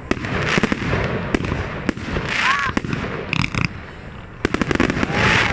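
Fireworks display: shots launching and bursting with sharp bangs and crackling. A rapid string of bangs comes about four and a half seconds in.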